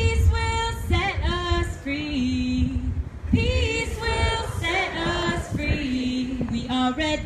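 A woman singing a protest song unaccompanied, in long held notes, with a low rumble underneath.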